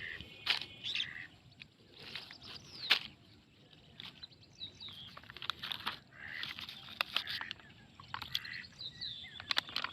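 Birds chirping and calling in short repeated chirps, with scattered sharp clicks and rustles, the loudest about three seconds in.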